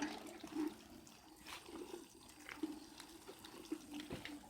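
Faint, irregular trickling and splashing of water as young fig cuttings are watered.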